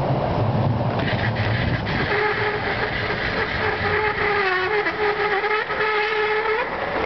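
Tram running past with a steady electric whine carrying several overtones, which dips slightly in pitch midway and stops near the end, over a low rumble of street traffic.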